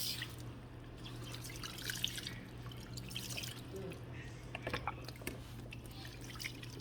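Water dripping and splashing in irregular small drops, as from rinsed wet hair into a shampoo bowl, over a steady low hum.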